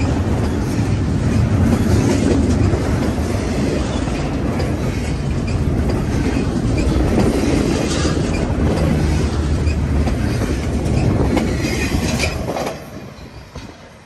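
Double-stack intermodal freight cars rolling past close by, a steady rumble and clatter of steel wheels on rail. About thirteen seconds in the last car goes by and the sound falls away sharply.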